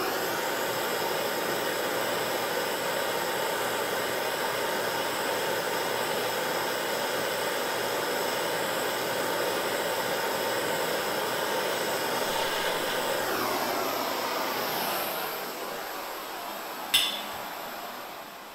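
Handheld propane torch burning with a steady hiss as it heats a seized fitting on a rusty lantern's valve to break it loose. The hiss fades away over the last few seconds, and a single sharp click sounds near the end.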